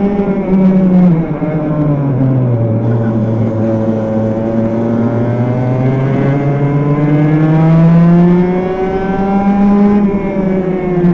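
Onboard sound of a racing kart's two-stroke engine under racing load. The revs drop sharply about a second in, climb steadily for several seconds, dip briefly, rise again, then fall off near the end.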